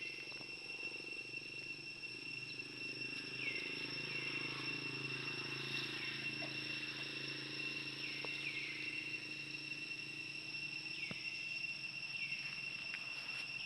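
Steady high-pitched insect drone, like crickets or cicadas, with short chirps dropping in pitch scattered irregularly through it.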